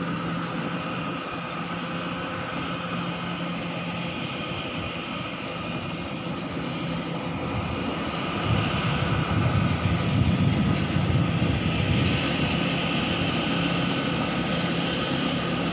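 Kaset Pattana 'Ngern Mee' rice combine harvester's diesel engine running steadily under load as the machine works across the field. The drone grows louder about eight seconds in.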